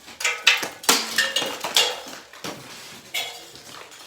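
Hard metal objects clattering and clinking against each other: a quick run of knocks with short metallic ringing, loudest in the first two seconds, then a last clank about three seconds in.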